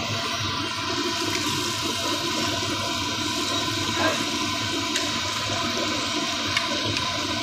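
Hot oil in a large kadhai sizzling and bubbling hard as a batch of finger fries deep-fries, a steady rushing fizz. About four seconds in the fries are tipped from a wire-mesh basket into the oil, with a small knock.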